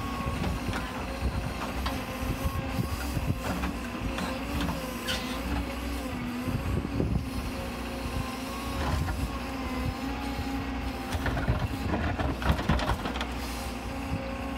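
Cat 314 compact excavator's diesel engine running under load, with a wavering hydraulic whine as the boom and bucket work. The bucket scrapes and knocks against rock and dirt, several sharp knocks coming close together about three-quarters of the way through.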